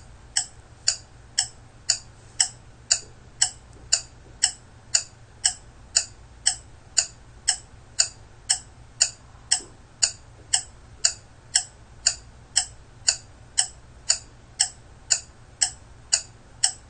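Clock-ticking sound effect counting down a timer, steady ticks about two a second.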